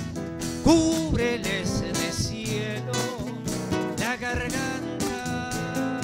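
Live band music: strummed acoustic guitars with bass and drums, and a melody line that slides and wavers with vibrato over them.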